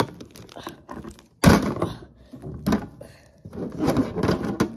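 Plastic wrestling action figures knocked and slammed against a toy wrestling ring: a string of small clicks and knocks, with one heavy thump about a second and a half in.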